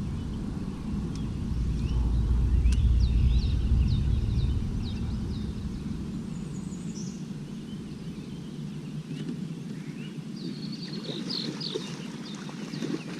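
Birds chirping in short repeated high notes, over a low rumble that swells about two seconds in and fades out by about five seconds.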